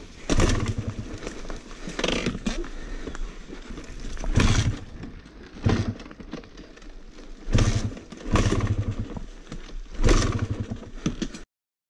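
Husqvarna TC 300 two-stroke dirt bike engine being cranked over again and again in short bursts about every one to two seconds, sputtering without catching after it has stalled. The sound cuts off suddenly near the end.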